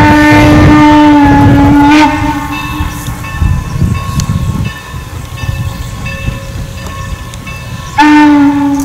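Steam whistle of Norfolk and Western No. 475, a steam locomotive, blowing one long steady blast that cuts off about two seconds in. The quieter rumble of the passing train follows, and the whistle sounds again near the end.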